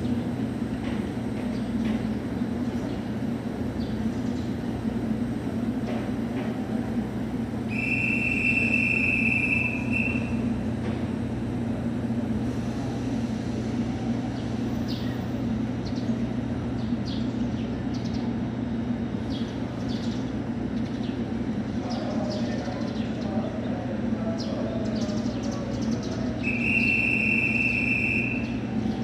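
Steady low hum of a train standing at a station, with two long high-pitched beeps of about two seconds each, one about eight seconds in and one near the end.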